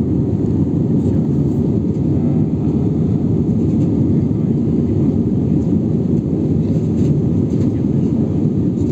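Airbus A320 cabin noise in the climb after takeoff: the engines and rushing air make a steady, loud, low rumble heard from a window seat inside the cabin.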